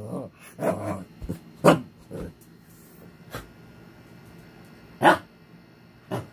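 Shih Tzu barking: short sharp barks, irregularly spaced, about six in all, the loudest near the start and around five seconds in, with a low growl under the first second.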